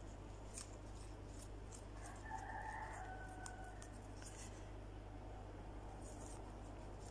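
Spatula stirring a thick cinnamon paste in a bowl: faint, repeated soft scraping strokes. About two seconds in, a short pitched call sounds in the background for about a second and a half.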